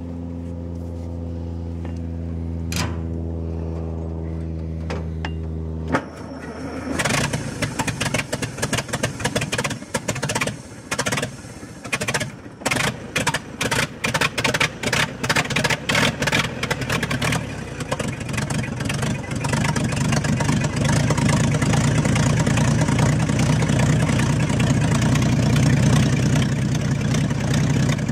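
1950 Oliver Cletrac crawler tractor's engine starting rough: after a steady drone that stops suddenly about six seconds in, the engine sputters and pops unevenly, then catches and runs steadily and louder for the last third. The misfiring fits the tractor's known trouble with water or sediment in the fuel and a makeshift choke.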